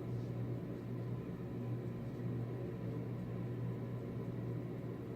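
Steady low hum with a faint hiss, unchanging throughout: room background noise.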